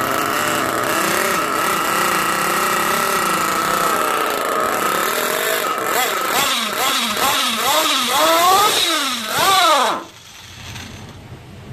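Nitro engine of an RC buggy running at a steady high idle during carburetor tuning. About six seconds in it is revved in several quick blips that rise and fall in pitch, then it cuts off suddenly about ten seconds in.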